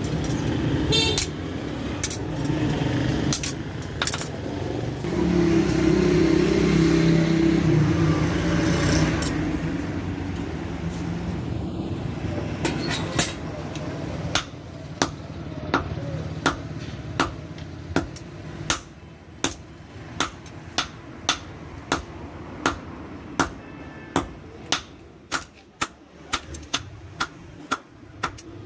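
A blacksmith's hand hammer striking steel on an anvil, in a steady rhythm of about one and a half blows a second that begins about halfway through, each blow ringing briefly. Before the hammering, a steady low hum and rumble fills the first half.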